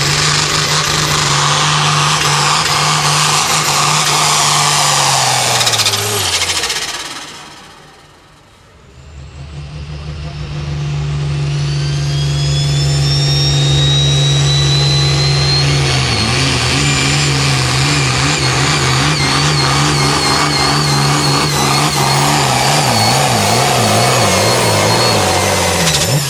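Hot farm class turbocharged diesel pulling tractors running at full throttle under load. The first engine winds down about six seconds in as its pull ends. Then another tractor's engine climbs with a rising turbo whistle and runs flat out, its pitch wobbling up and down over the last ten seconds.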